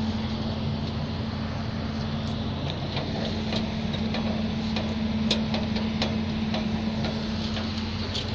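A steady low mechanical hum, with irregular light clicks and ticks scattered over it.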